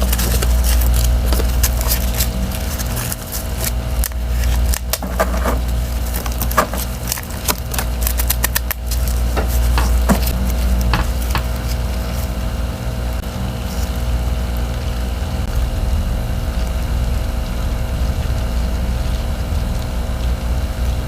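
Crisp crunching and crackling of frozen freezer frost and thin ice chunks. The crackles come thick and fast for about the first twelve seconds, then thin out, over a steady low hum.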